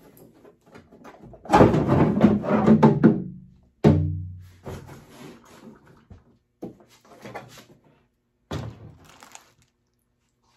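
Hard plastic clattering and scraping as a Rockford Fosgate subwoofer enclosure is worked out of a Harley-Davidson saddlebag, then a loud hollow thunk about four seconds in that rings briefly. Lighter knocks follow as it is set down.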